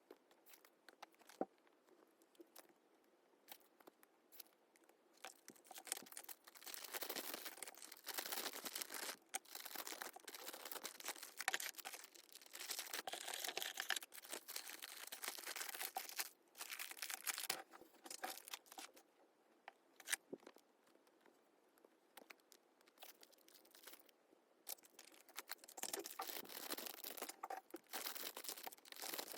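Plastic wrapping and paper being handled: scattered small clicks, then long stretches of crinkling and rustling, with a pause in the middle.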